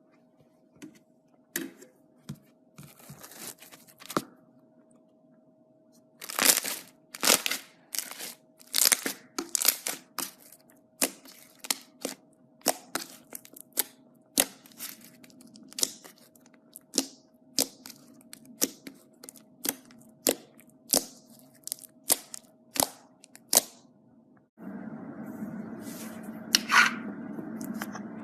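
Slime being squeezed and stretched by hand, giving a run of sharp crackling pops, about one to two a second. Near the end a steady rushing noise comes in under them.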